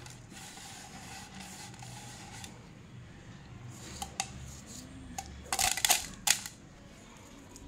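Damp crushed slate pencil squeezed and crumbled by hand. A few crisp crunches come about four seconds in, then a louder run of crackling crunches past the halfway mark.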